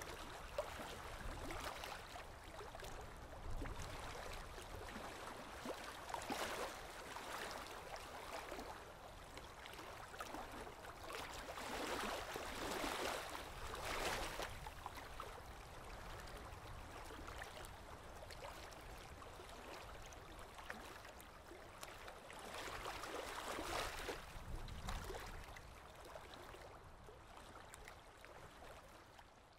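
River water washing and lapping, swelling and falling every few seconds, over a low rumble; it fades out near the end.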